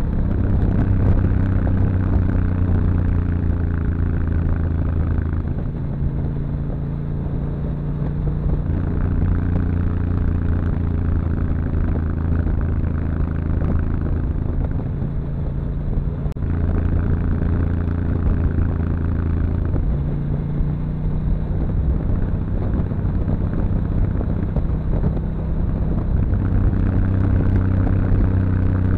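1997 Ducati 900SS's air-cooled 90-degree V-twin running on the move at a steady pitch, its note growing stronger and easing off several times as the throttle is opened and closed, with wind noise on the microphone.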